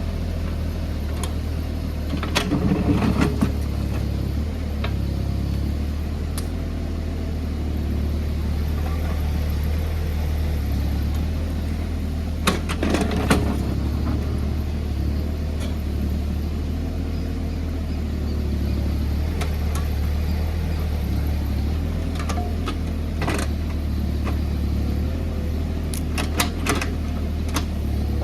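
JCB JS30 Plus mini excavator's diesel engine running steadily under working load, with sharp knocks and clatter from the bucket working the ground: a cluster about three seconds in, another around the middle, and several near the end.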